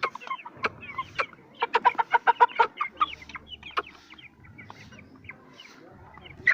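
Aseel chickens clucking in short, pitched calls, with a quick run of clucks about one and a half to two and a half seconds in and sparser, quieter clucks after that.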